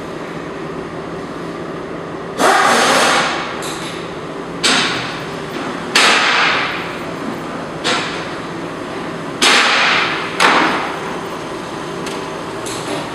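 A car driving up onto a drive-on lift rack: about six loud metallic bangs at irregular intervals, each ringing off within a second, over a steady low hum.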